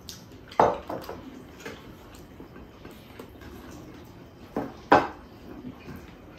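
Dishes knocking and clinking on a table: a sharp pair of knocks just after half a second in, and another pair near five seconds in.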